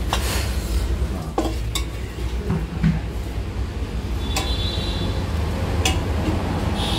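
Serving ladle and vessel clinking as fish curry is ladled onto rice: a handful of short knocks and clinks, one with a brief ring, over a steady low rumble.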